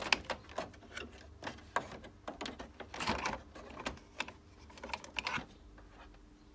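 Irregular plastic clicks and rattles, with a couple of brief scraping rustles, as a continuous ink system's block of refillable cartridges is unclipped and pulled out of a printer's carriage.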